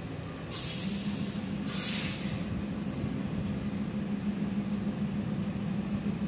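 Passenger train's air brakes releasing in two short hisses as the train starts to depart, followed by a steady low hum as it begins to roll.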